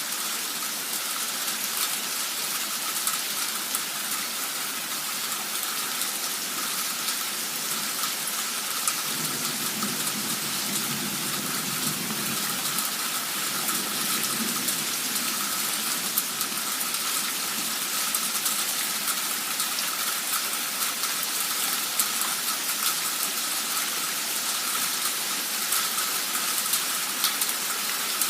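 Torrential rain in a sudden downpour: a steady hiss of falling rain with many individual drops striking. A low rumble joins it for several seconds about a third of the way in.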